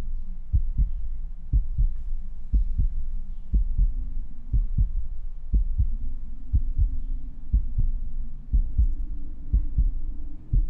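Heartbeat sound effect: paired low thumps, lub-dub, about once a second, over a low steady drone.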